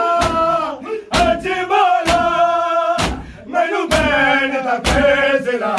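Group of men singing a Punjabi noha in chorus, with held, wavering notes, over the steady strikes of a crowd beating their bare chests in matam, about one stroke a second.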